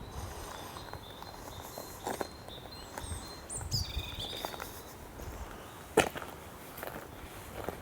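Footsteps on an outdoor path, with small birds calling and singing in high thin whistles, one falling sharply in pitch about three and a half seconds in. A sharp click about six seconds in is the loudest sound.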